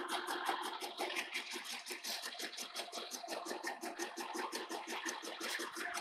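Fly cutter on a Lucas horizontal boring mill taking an interrupted cut across the steel end plate of a column, the single tool striking the metal at about nine times a second in an even clatter over a steady hum.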